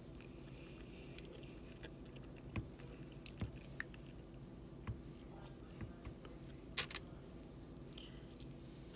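Quiet chewing of soft fries with cheese and gravy, with scattered short clicks of a plastic fork against the food tray, the loudest sharp click about seven seconds in.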